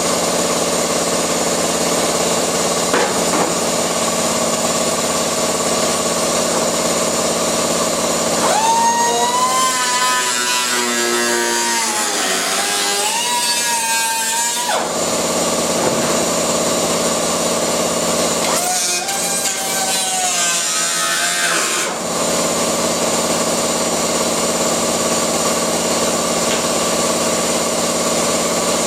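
A handheld power tool cutting through the rusty steel rain-gutter of a Mk1 Ford Escort body, running steadily. Its pitch wavers and dips while it bites into the metal, from about nine to fifteen seconds in and again from about nineteen to twenty-two seconds.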